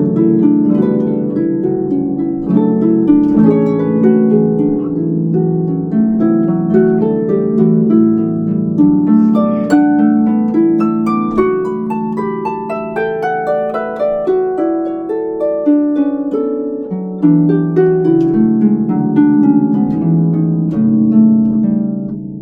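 Concert harp playing solo: a continuous flow of plucked notes that ring over one another, mostly in the middle and low range, with occasional higher notes on top.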